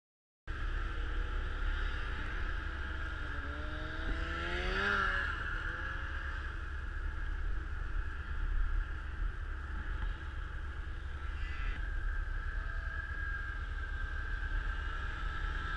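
Snowmobile engine running while riding over snow, with a steady whine. It rises in pitch around four to five seconds in, and wind rumbles on the helmet-mounted microphone.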